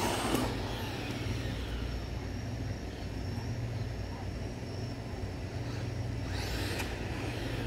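Traxxas Maxx RC monster truck's brushless electric motor whining and its tyres running on asphalt as it drives off down the street, fainter at a distance. About six seconds in there is a brief rising-and-falling whine as it speeds up again.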